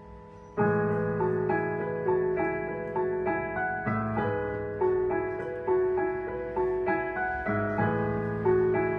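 Piano music. A held chord fades, then about half a second in a steady figure of repeated notes begins over low sustained chords that change a couple of times.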